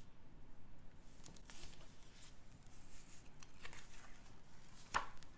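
Pages of a hardcover picture book turned by hand: faint paper rustles and light taps, with one sharper tap near the end.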